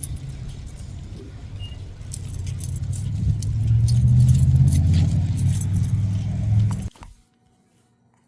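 Road noise inside a moving car, a low rumble that grows louder in the middle, with light jingling clinks over it. It cuts off abruptly about seven seconds in, leaving near silence.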